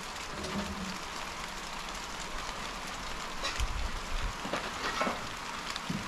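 Steady rain falling, with scattered drops ticking, and a brief low rumble a little past the middle.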